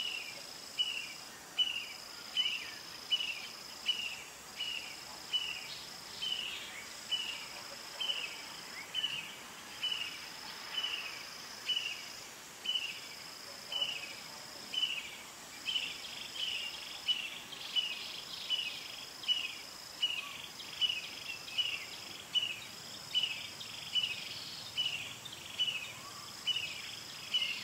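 Insects chirping and buzzing: a short chirp repeated about one and a half times a second over a higher, steady buzz that breaks off briefly every couple of seconds.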